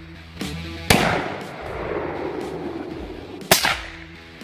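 Two suppressed shots from a .223 AR-15-style rifle fitted with a Dakota suppressor, about two and a half seconds apart, each a sharp crack followed by a fading echo.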